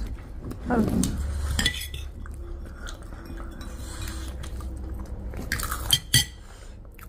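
Metal cutlery clinking and scraping against a ceramic plate, with a few sharp clinks, the loudest about six seconds in.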